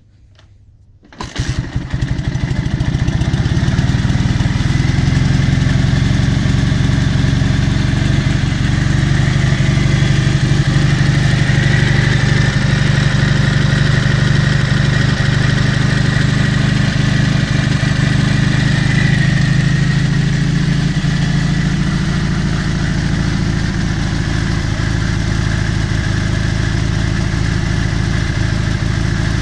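Dnepr MT-11 motorcycle's opposed-twin engine starting about a second in and settling into a steady idle: a trial start on its freshly repaired electronic ignition.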